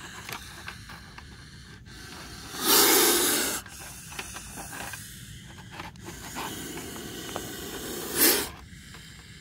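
A cobra hisses loudly as it is prodded with a stick in a wire-mesh trap: one long forceful hiss about three seconds in, and a shorter one near the end.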